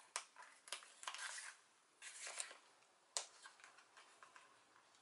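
Faint rustling of card-stock pages and tags in a handmade scrapbook album as they are lifted and turned by hand, with a few light clicks, the sharpest about three seconds in.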